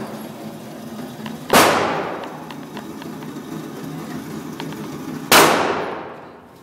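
Two shots from a Glock 20 SF 10mm Auto pistol, about four seconds apart, each a sharp loud crack whose echo fades over about a second.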